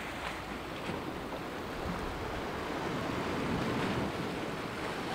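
Sea washing against the rocks at the water's edge: a steady rushing wash of water that swells a little around the middle.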